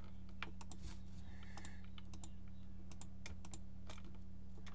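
Irregular clicking of a computer keyboard and mouse, about fifteen sharp clicks, some in quick pairs, over a steady low electrical hum.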